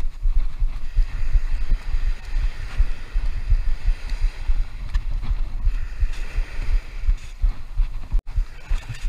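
Wind buffeting the camera microphone in irregular low gusts, over small surf washing up onto a sandy beach. The sound drops out for an instant about eight seconds in.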